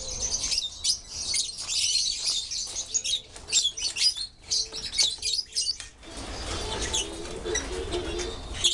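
A flock of lovebirds chirping shrilly and constantly, many short calls overlapping. About six seconds in, a lower wavering sound joins the chirping.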